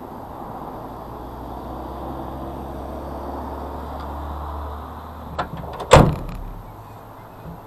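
Pickup truck tailgate slammed shut: one sharp, loud bang about six seconds in, just after a lighter click, over a low steady rumble.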